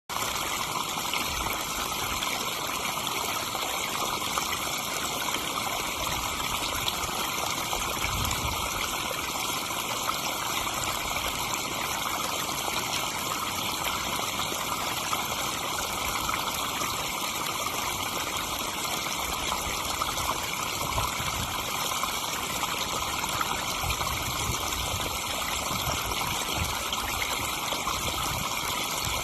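Pond waterfall with water pouring and splashing steadily into the pond, with a few brief low rumbles.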